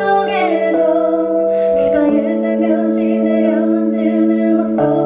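A woman singing a solo song into a microphone over held accompaniment chords, which change a few times.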